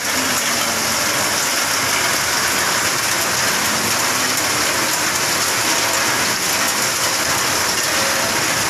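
Heavy rain falling steadily, an even, unbroken rush with no let-up.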